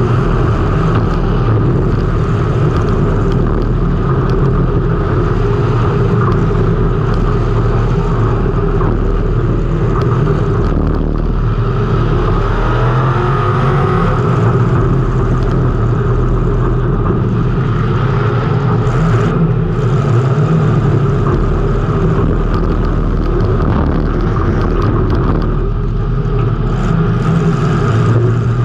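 Race car engine running hard under racing load, heard from a camera mounted on the car, with a brief rise and fall in pitch about twelve seconds in.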